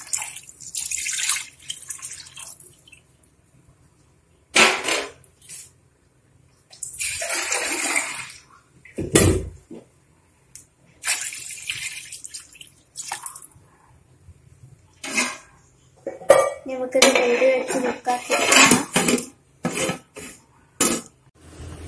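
Water poured into a large aluminium pot of beef masala in several splashing pours, thinning it to a gravy. Near the end the pot's aluminium lid clatters and rings against the rim as it is handled and set on.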